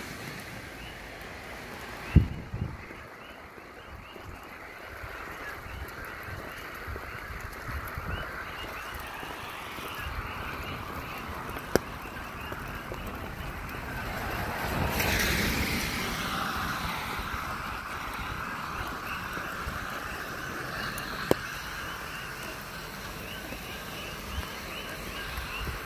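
Night chorus of coquí frogs, many small repeated chirping calls over a steady wet-night din. A vehicle swishes past on the wet road about fifteen seconds in. A few sharp clicks stand out, the loudest about two seconds in.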